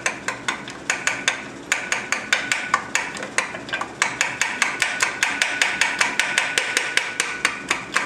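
Quick, light metal-on-metal clicks from hand tools working a connecting-rod cap loose on a Nissan KA24DE engine block, about four or five a second with a couple of short pauses, each click ringing briefly.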